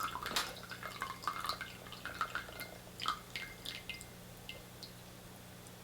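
The last of the tea trickling and dripping from a glass teapot's spout into a cup. The drips thin out and stop near the end.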